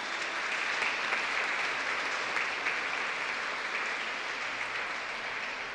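A group of people clapping their hands in steady applause, easing off slightly near the end.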